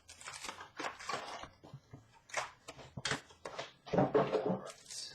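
Hockey card box and foil card packs being handled and opened: short bursts of crinkling, rustling and tearing with sharp clicks, the loudest rustle about four seconds in.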